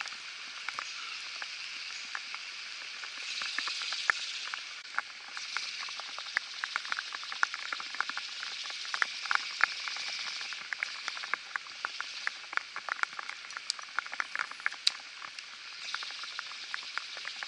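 Rain falling: a steady hiss with many sharp, irregular ticks of drops striking close by.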